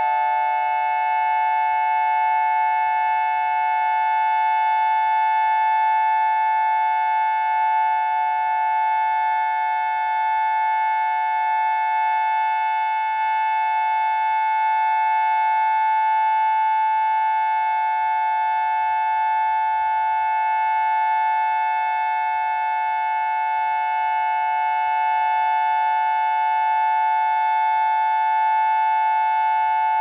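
Whelen WPS 2750 electronic outdoor warning siren sounding its dual-tone Alert signal: two steady tones held together at a constant pitch, with slight slow swells in loudness.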